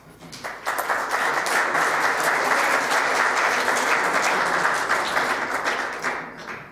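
Audience applauding. The clapping starts about half a second in, holds steady, and dies away near the end.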